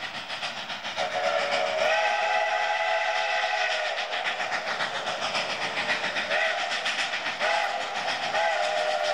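Two narrow-gauge Mikado steam locomotives, K-37 and K-36, working a double-headed train up the grade with a rapid, steady exhaust chuff. A chime steam whistle sounds one long blast about a second in, then three short toots near the end.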